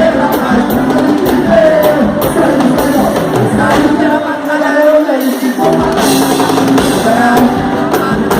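Upbeat Christian praise music with singing over a drum kit and band. The low bass drops out for about a second around the middle, then comes back.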